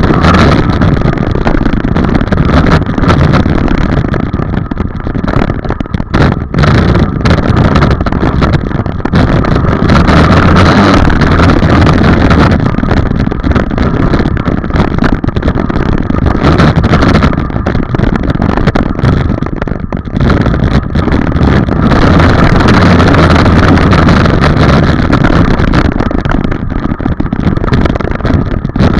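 Dirt bike engine running loud and close, revving and easing off as the bike rides laps, with short dips in the engine note about 6 seconds in and again about two-thirds of the way through.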